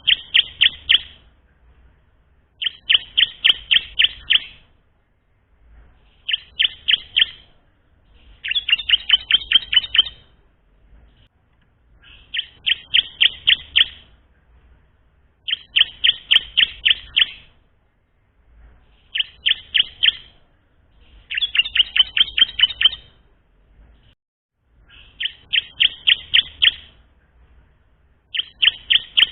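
Bar-winged prinia (ciblek) singing: a young bird practising its song. It repeats a short phrase of rapid, sharp chipping notes about every three seconds, roughly ten times over.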